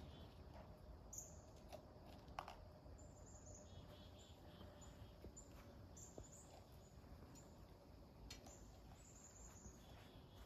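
Near silence, with faint, short, high bird chirps now and then and a few soft clicks.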